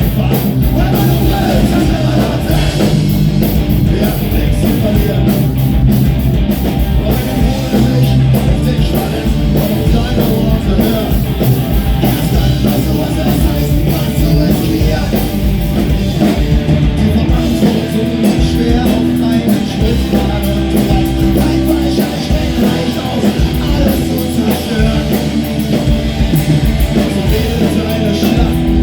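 Live punk rock band playing loud and fast, with distorted electric guitars, bass and drums under shouted singing.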